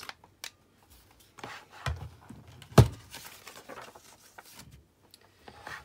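Craft supplies being handled and set down on a desk: a few knocks, the loudest a sharp one a little under three seconds in, with light rubbing and rustling between them.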